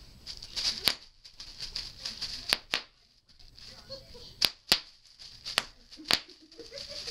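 Bubble wrap popping under a toddler's stockinged feet: about seven sharp single pops spread out, two of them in quick pairs, with the plastic crinkling in between.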